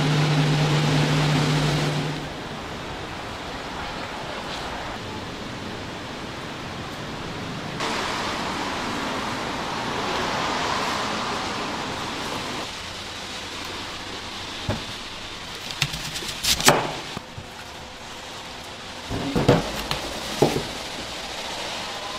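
A steady low hum at first, then outdoor street noise: a steady hiss with passing cars. Near the end come several sharp knocks of a knife cutting through an onion onto a wooden chopping board.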